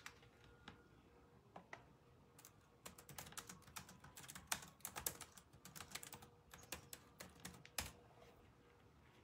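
Typing: faint, quick, irregular clicks and taps, a few scattered at first, then a dense run from about two and a half seconds in until about eight seconds.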